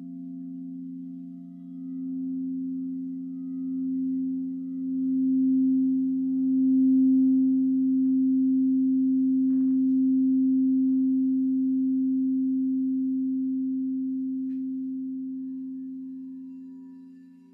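Quartz crystal singing bowls sung with a mallet worked around the rim, two steady low tones sounding together. The sound swells with a slow wobble over the first several seconds, holds, then slowly fades near the end.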